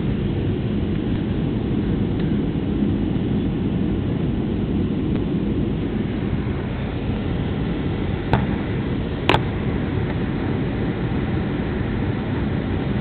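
Steady engine and airflow noise inside a jet airliner's cabin during the landing approach. Two sharp clicks come about a second apart, a little past the middle.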